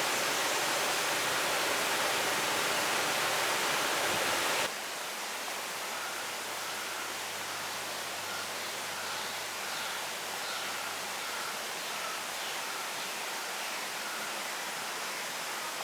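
Steady rush of flowing river water. It drops abruptly to a quieter level about five seconds in, and faint, short high chirps then repeat over it.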